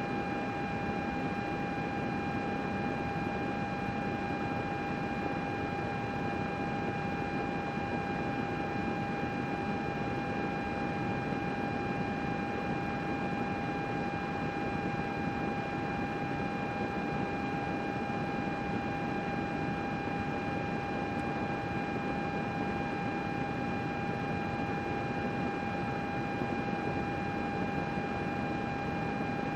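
Computer cooling fans running steadily: an even rushing noise with a constant high whine on top, unchanging throughout.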